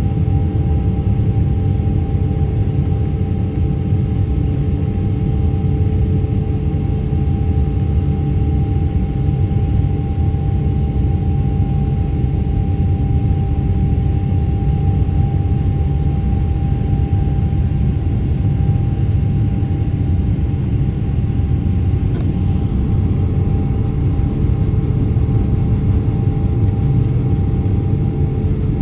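Boeing 777-300ER's GE90 jet engines running at a steady setting, heard inside the cabin as the aircraft rolls along the ground: a deep, even rumble with a constant hum on top.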